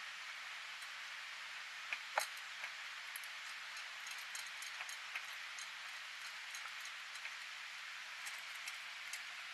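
Two cats eating canned food from stainless steel bowls: scattered small clicks and ticks of teeth and tongues against the metal, with one sharper clink about two seconds in, over a steady hiss.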